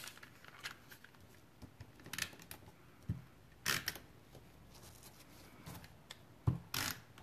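A few short, scattered scrapes and taps of paper being handled on a table, including the quick swipes of a snail tape-runner laying adhesive on a paper label.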